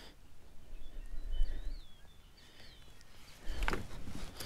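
Birds calling with short, curved whistled notes over a low rumbling outdoor background, with a single knock about three and a half seconds in.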